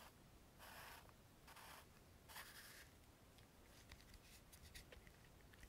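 Faint rustling and scraping of pouch items being handled close to the microphone: three short scrapes in the first three seconds, then a scatter of small clicks and taps.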